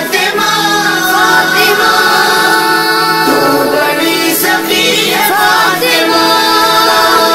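A child singing an Urdu devotional poem with a refrain to Fatima, over a steady sustained backing drone.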